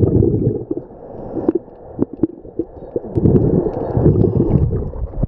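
Scuba regulator breathing underwater: exhaled bubbles rumbling and gurgling in two long bursts, one at the start and one from about three seconds in, with scattered small clicks in between.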